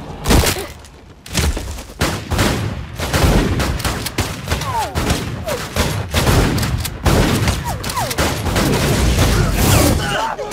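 A rapid series of loud blasts and impacts, like gunfire and explosions in an action-film fight. One sharp blast comes about a third of a second in, and the blasts crowd together from about three seconds on.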